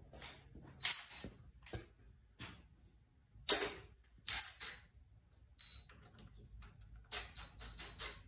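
Cordless drill-driver run in short bursts, with a quick cluster of them near the end, backing out the Phillips screw on a motorcycle battery's positive terminal. The screw was only finger tight.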